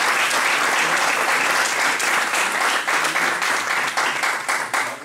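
Audience applauding, thinning out into separate claps and dying away near the end.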